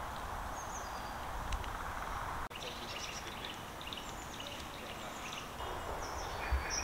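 Woodland ambience: small birds chirping and twittering over a steady background hiss, with a brief dropout about two and a half seconds in.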